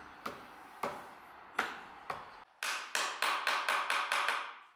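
Small claw hammer tapping a wooden dovetail joint closed: a few spaced taps, then a quicker run of about eight taps that stops shortly before the end.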